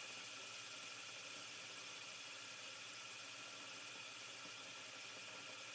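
Faint steady hiss with a low hum: room tone.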